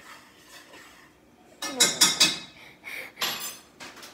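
Utensil clinking and clattering against a ceramic mug: a quick, loud cluster of clinks about halfway through, then a couple of softer knocks.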